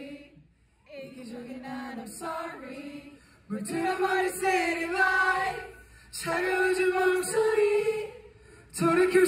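A male singer singing unaccompanied into a microphone, in phrases with short breaks between them, the later phrases louder and fuller.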